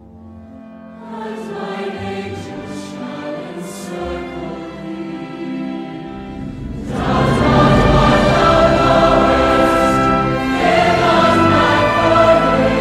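Choral music with sung voices over accompaniment, starting softly and swelling louder about seven seconds in.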